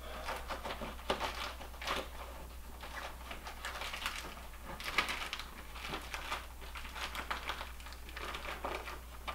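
Nylon pack fabric rustling and straps being tugged as a stuffed pack is closed up: a run of short, irregular swishes and scrapes. A low steady hum sits underneath.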